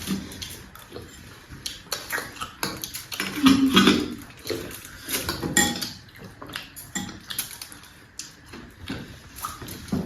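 Close-miked eating: chewing and mouth sounds, with scattered short clicks and clinks of dishes and cutlery.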